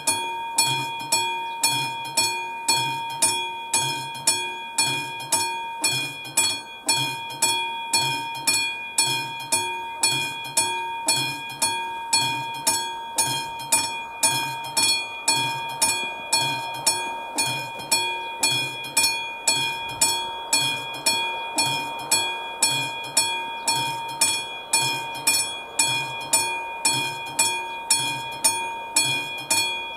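Warning bell of an AŽD 71 level-crossing signal, the classic mechanical striker bell, ringing in a fast, even series of strokes with a steady ring. It sounds while the crossing's red lights flash, warning that a train is approaching.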